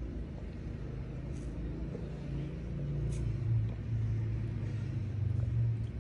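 A low, steady rumbling hum like a motor running, growing louder over the second half. A few faint soft clicks come as iced tea is sipped through a straw.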